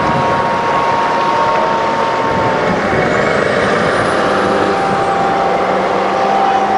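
A convoy of eight-wheeled armored military vehicles driving past, a steady loud rumble of engines and tires. A whine drops in pitch as one vehicle goes by, about two and a half seconds in.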